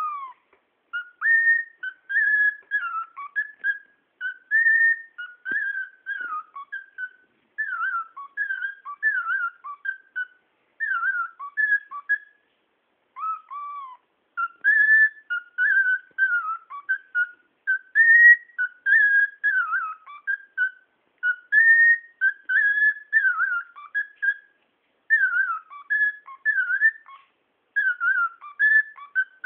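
Cockatiel whistling: a long run of short, clear whistled notes that glide up and down in quick phrases, with brief pauses between them.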